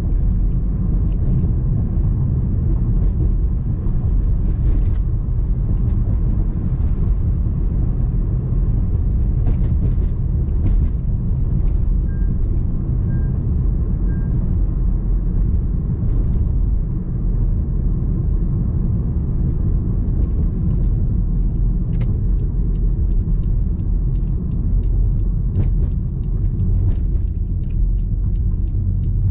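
Steady low rumble of a car driving on city streets, engine and tyre road noise. Around the middle come three short high beeps about a second apart, and faint rapid ticking runs through the last several seconds.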